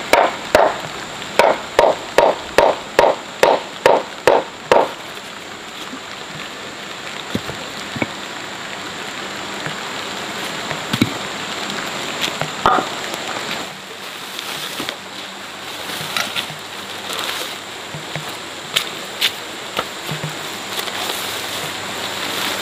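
About a dozen quick, evenly spaced chopping strikes, roughly three a second, in the first five seconds, followed by scattered knocks and taps over a steady hiss.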